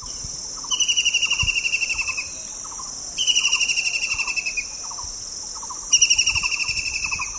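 Bird song: three rapid, evenly pulsed trills, each about a second and a half long and falling slightly in pitch, repeated every two and a half seconds or so. Under them runs a steady high-pitched buzz, with faint softer calls lower down.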